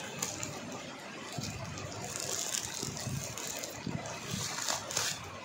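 A plastic mailer bag rustling and crinkling as it is cut open with scissors and handled, with brighter crinkles about two seconds in and again near the end.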